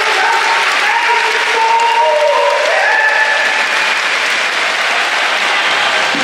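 Stadium crowd applauding a goal, a dense steady clapping, with a few held notes of a melody sounding over it in the first three seconds.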